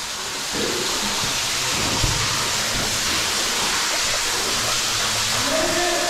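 Underground waterfall falling and splashing close by: a loud, steady hiss of water. A low knock about two seconds in.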